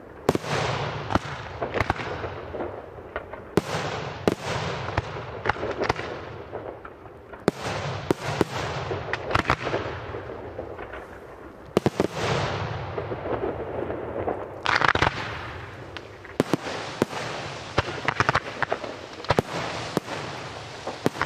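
Aerial firework shells bursting: a sharp boom every few seconds, each followed by crackling and fizzing as the stars burn out. From about two-thirds of the way through the reports come thicker and faster as more shells and comets are fired.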